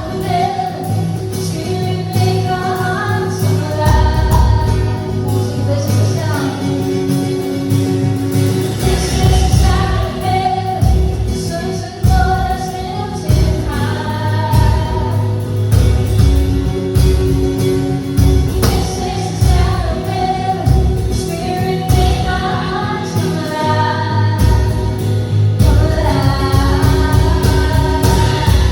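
Contemporary Christian worship song: sung vocals with backing singers over sustained keyboard and guitar chords and a steady bass and drum pulse.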